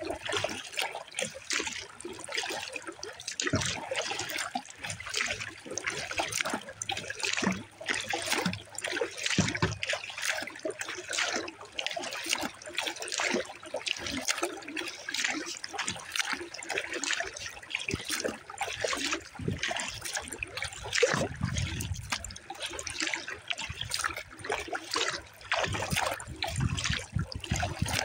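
Water splashing and trickling around a Pelican Argo 100XR kayak as it is paddled, with irregular drips and small slaps of water against the hull. Some low rumbles come in after about twenty seconds.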